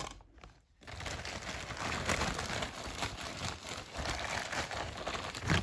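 Plastic packaging crinkling and rustling as a vacuum-cleaner accessory is handled and unwrapped, starting about a second in.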